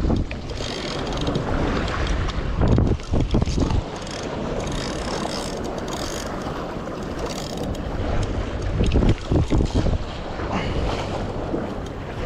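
Wind buffeting the microphone in gusts, over seawater washing against the rocks of a stone jetty.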